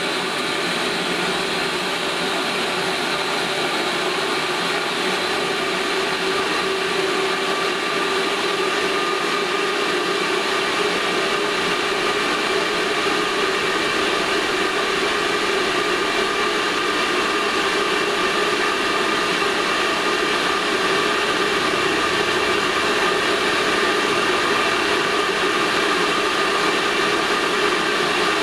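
Ideal Isar 24 gas boiler's combustion fan running with a steady whir and a couple of steady tones, slowly picking up speed and getting a little louder once the flame is detected and the burner is going.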